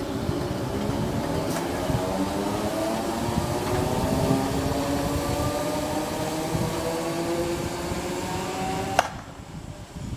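Electric multiple unit accelerating away: its traction motors whine, rising steadily in pitch, over the rumble of wheels on the rails. The sound cuts off abruptly with a click about nine seconds in.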